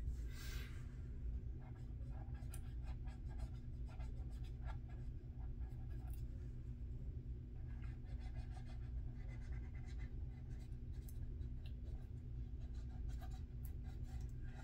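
Cotton swab rubbing and burnishing thin aluminium foil onto a plastic scale-model part, giving faint, irregular scratching and scraping. A steady low hum runs underneath.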